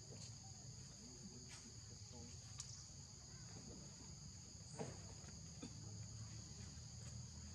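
Faint, steady, high-pitched drone of insects, with a soft click just before five seconds in.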